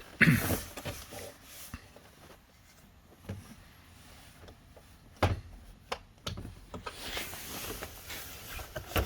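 Plastic car door trim panel being handled and pressed back into place: a few sharp knocks, the loudest just after the start and two more about five and six seconds in, with rustling near the end.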